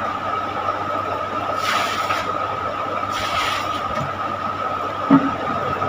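Steady background noise of the recording: a constant high whine over hiss, with two short rushes of hiss about two and three and a half seconds in.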